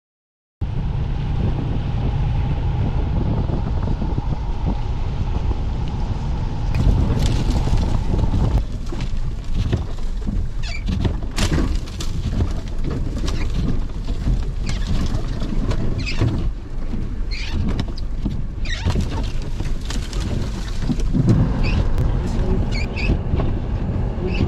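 Vehicle cabin noise of slow driving through deep snow: a steady low engine and tire rumble. From about seven seconds in, a run of sharp crackling scrapes and slaps as snow-laden branches strike the windshield and body.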